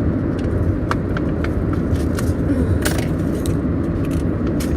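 Steady low rumble of car road and engine noise heard inside the cabin, with scattered light clicks and rustles over it.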